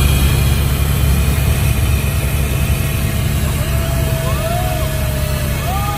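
Helicopter in flight, a loud steady drone of rotor and engine. Faint voices come through over it from about three and a half seconds in.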